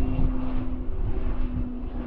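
Twin turboprop engines and propellers of a Beechcraft King Air landing, a steady droning hum that drops slightly in pitch about halfway through, over a low rumble.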